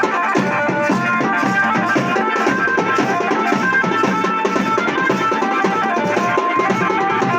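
Garhwali wedding band playing: a melody in short held notes over fast, busy drumming, at a steady loud level.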